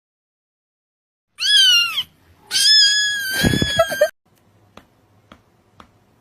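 A cat meowing twice: a short meow that rises and falls in pitch, then a longer, louder meow with a low rumble under its end. Faint ticks follow.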